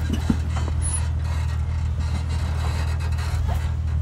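Jeep Wrangler's engine running at a low, steady crawl as it climbs over creekbed rocks, with a few light creaks and scrapes from the rocks and chassis.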